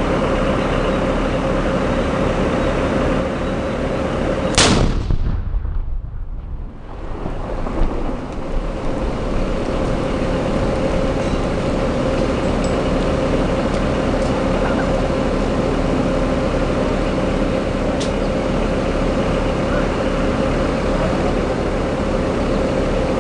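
A pressure-cooker IED detonating: one sharp, loud blast about four and a half seconds in, over a steady background drone. For about two seconds after the blast the sound goes dull and drops, then the drone returns.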